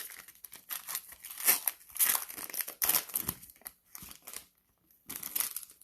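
Cellophane wrapper of a trading card cello pack being torn open and crinkled, in irregular crackling rustles. These are busiest in the first three seconds, thin out, then come in a last short flurry near the end.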